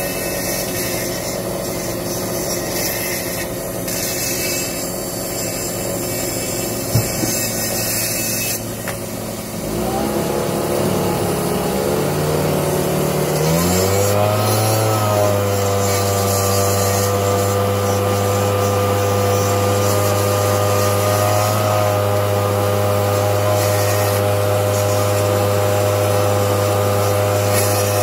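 Handheld electric chainsaw-chain sharpener running. After a rough, noisy first ten seconds, the motor's pitch climbs unevenly over a few seconds, then settles into a steady hum with a whine above it.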